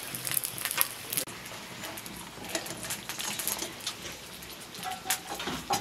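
Flatbreads shallow-frying in hot oil in a cast-iron pan: a steady crackle and spatter of the oil, busiest in the first second, with a couple of sharper clicks near the end.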